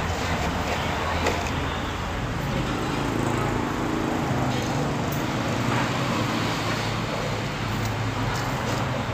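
Steady road traffic noise, a constant low engine hum with a hiss over it.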